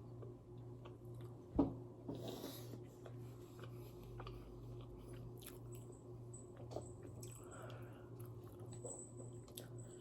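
Close-up chewing and biting of fast food, with small mouth clicks, over a low steady hum. There is one sharp knock about a second and a half in, the loudest sound here.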